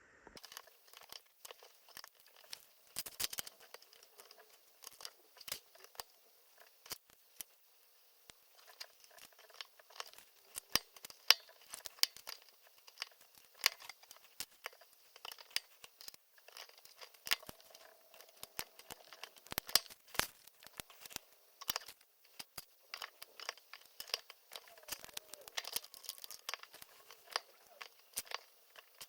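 Small plastic Lego pieces clicking and clattering as they are picked out and pressed together, with many irregular sharp clicks and some rustling handling.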